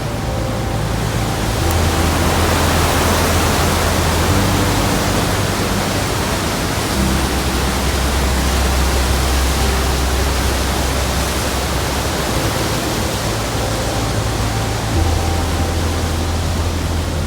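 Loud, steady rushing noise, like rushing water or wind, with sustained low musical notes underneath that change every few seconds.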